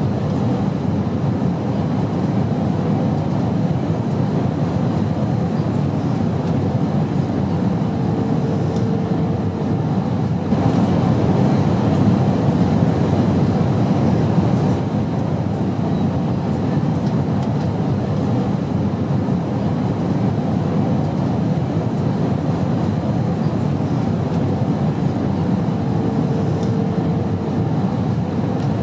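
Steady low drone of an airplane in flight, an even rumbling noise without pauses, swelling slightly for a few seconds in the middle. A faint brief hum rises out of it twice.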